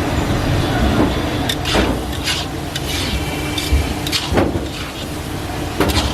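Metal spatula scraping and knocking against a wok as fried rice is stirred and tossed, with frying sizzle underneath; about five sharp strokes stand out.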